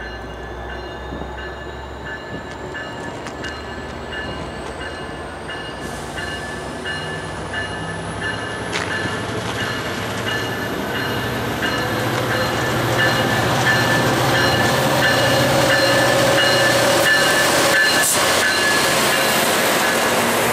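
An Amtrak Cascades passenger train with Talgo cars running in and passing close, its rumble growing steadily louder as it nears. A thin, steady high whine rides over the rumble, and a faint rising whistle climbs slowly through the upper range.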